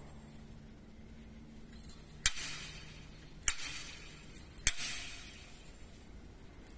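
Three sharp metallic clanks a little over a second apart, each ringing out for about a second: metal parts of a wire straightening and cutting machine's length-stop assembly being struck.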